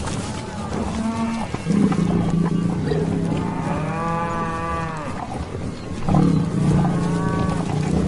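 Cattle mooing: several long moos in a row, each lasting about a second or more, the loudest one about midway through.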